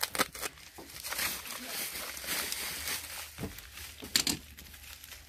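Packaging being opened by hand: a continuous rustling and crinkling, with scattered sharp clicks and snaps, the loudest about four seconds in.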